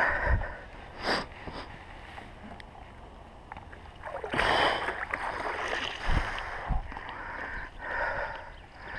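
Water splashing and running off a mesh keepnet holding fish as it is hauled up out of the water, loudest about four seconds in, with a few dull knocks.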